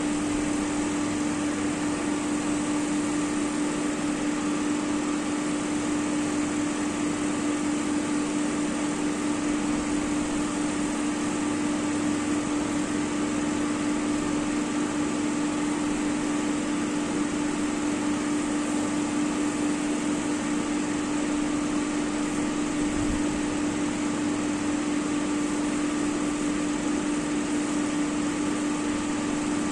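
Steady hum of running laboratory machinery, with a constant low tone, unchanged throughout.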